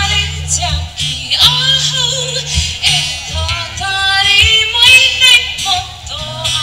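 A woman singing a slow melody into a microphone, accompanied by an acoustic guitar, amplified live.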